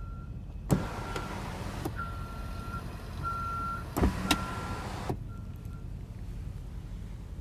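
Car cabin warning chime beeping on and off at one high pitch, with uneven beep lengths, over a low steady rumble, with a few sharp clicks and a hiss that stops abruptly about five seconds in.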